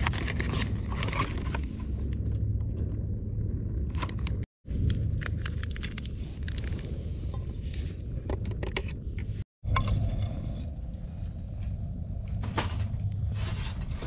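Small handling sounds of making a drink: paper rustling from a torn stick pack, then light clinks and scrapes of a wooden stick stirring in a metal mug. A steady low rumble runs underneath.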